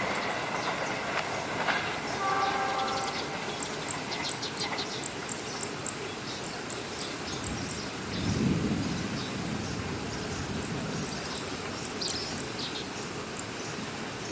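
A passing train running along the track with a steady rumble and quick, light clicking from the wheels on the rails. A brief horn sounds about two seconds in.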